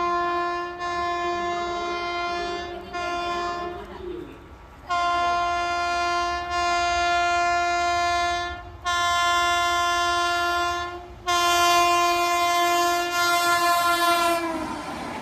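WAP7 electric locomotive's horn sounding a string of about six long blasts as it approaches at about 127 km/h. The last blast falls in pitch as the locomotive passes, and the rush of the passing train follows near the end.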